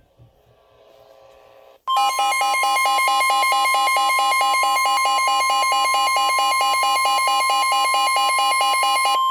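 Emergency Alert System attention tone: a loud electronic alert tone that starts abruptly about two seconds in and warbles rapidly between pitches over a steady high tone. Near the end the warble drops out and only the steady tone remains.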